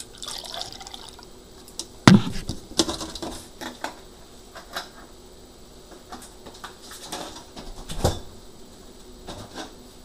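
Drinking water poured briefly into a glass, then scattered knocks and clinks as the glass and other things are handled, one knock about two seconds in louder than the rest.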